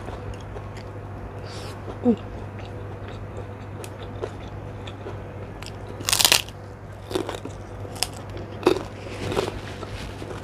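Close-miked eating: crunchy bites and chewing, the loudest crunch about six seconds in, followed by several smaller crunches.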